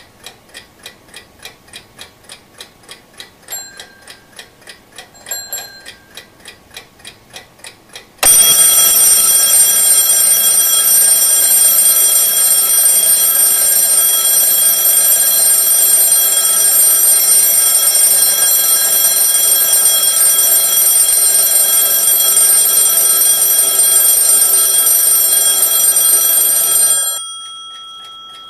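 Twin-bell mechanical alarm clock ticking, about three ticks a second. About eight seconds in, the alarm goes off: the hammer rings loud and steady on the two bells for nearly twenty seconds, then stops and the bells ring out briefly.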